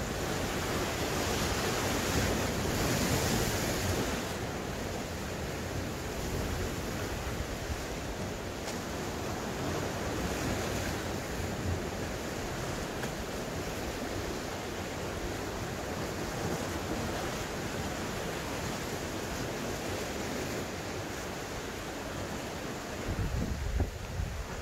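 Sea waves washing against rocks under a strong wind, with gusts buffeting the microphone. The surf swells louder a couple of seconds in, and a few low thumps come near the end.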